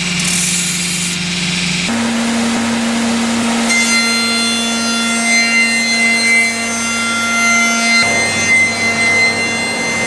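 A motor-driven workshop machine running with a steady whine over a rough grinding noise. The sound shifts abruptly several times, about two, four and eight seconds in.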